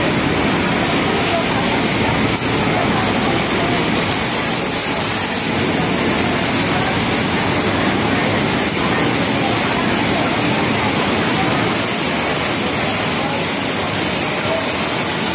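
Steady din of a garment-factory sewing floor: industrial sewing machines, among them a flatlock machine hemming a sleeve, run without a break, with voices talking in the background.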